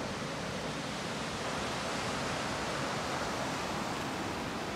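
Steady, even rushing of fast-flowing river water.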